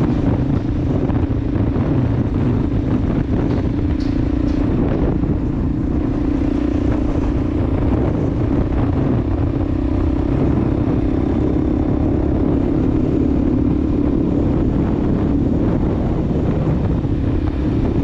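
Dirt bike engine running steadily at cruising speed, heard from on board the moving bike, with wind rumbling on the microphone.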